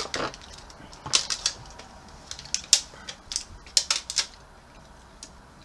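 Plastic snack wrapper being handled, a run of sharp, irregular crinkles and crackles that dies away near the end.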